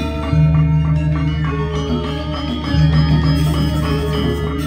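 A live Balinese gamelan plays the accompaniment for the Legong dance. Bronze metallophones play fast note patterns over deep, ringing gong-like tones that are struck again about every two and a half seconds.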